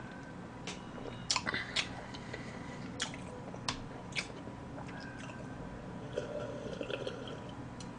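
Close-up mouth sounds of a person eating chocolate cake and sipping iced Americano from a glass: chewing and swallowing, with a few short sharp clicks scattered through, most of them between one and four seconds in.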